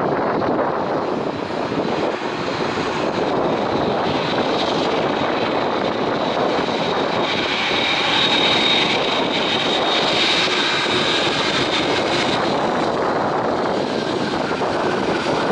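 Boeing 787-8 airliner's GEnx turbofan engines running at taxi power as the jet taxis by: a steady rush of jet noise with a high whine that is loudest about halfway through, when the aircraft faces the microphone.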